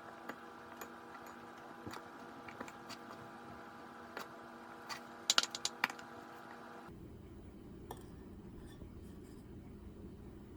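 Scattered light clicks and taps of blueberries being dropped onto pancake-muffin batter in a metal muffin tin, with a quick run of sharper clicks about five seconds in. A faint steady hum underneath cuts off suddenly about seven seconds in.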